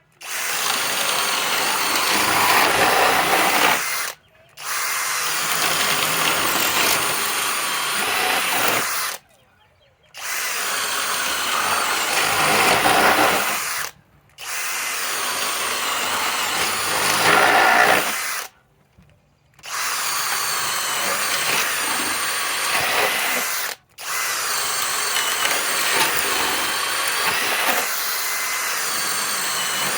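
Masterforce Boost cordless drill boring into wood under load, running in long stretches of several seconds, broken by five brief pauses.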